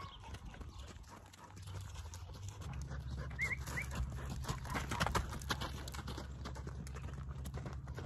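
A dog panting, mixed with soft hoofbeats of a horse moving on dirt. A low steady rumble comes in about three seconds in.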